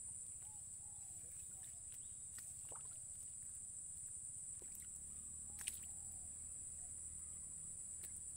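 Swamp ambience: a steady high-pitched insect drone, with faint water sounds and small ticks. One sharp click comes a little past halfway.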